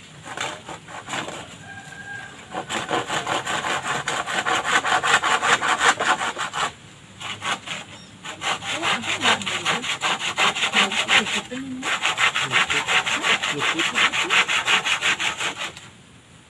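Hand saw cutting across a green bamboo pole in quick, even back-and-forth strokes. The sawing comes in three runs, with short pauses about seven and twelve seconds in, and stops shortly before the end.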